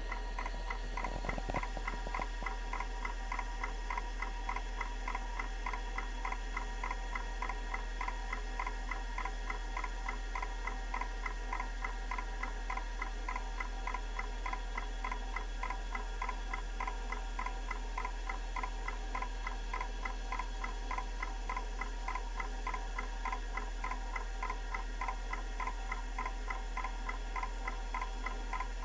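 Kalok KL343 Octagon IDE hard drive ticking rapidly and evenly as its heads step from track to track during a surface scan for bad sectors, over the steady whine and hum of the running drive.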